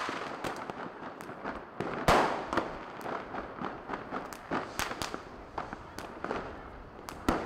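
Fireworks and firecrackers going off: a rapid, irregular scatter of bangs and cracks, the loudest about two seconds in and another sharp bang near the end.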